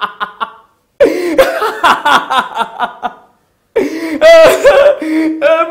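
A man's loud, acted maniacal laughter in rapid pulsing bursts, cut off twice by a brief dead silence. Near the end it becomes a longer, drawn-out cry of laughter held on one pitch.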